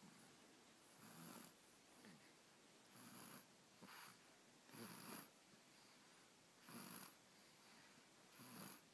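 Faint snoring from a sleeping two-month-old: short, breathy snores every second or two, each with a light hiss.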